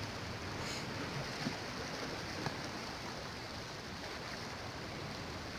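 Steady wash of sea surf, an even rushing noise without breaks.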